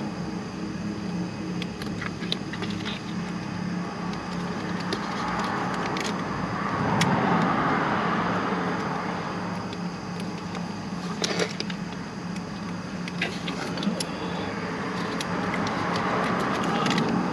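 Scattered light metallic clicks and taps from a lock washer and nut being worked by hand onto a car starter's terminal stud, over a steady low hum.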